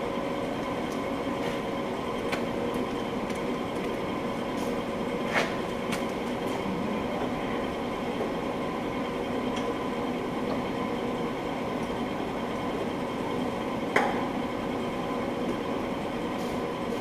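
Steady machine hum in a workshop, with a few short metallic clinks of tools, the clearest about five and fourteen seconds in.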